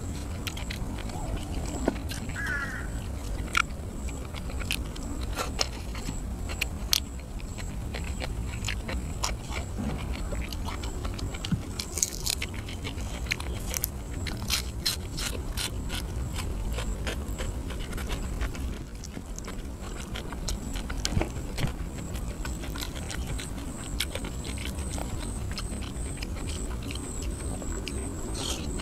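Close-miked chewing and biting: a person eating grilled catfish with papaya salad, with many short wet mouth clicks and smacks.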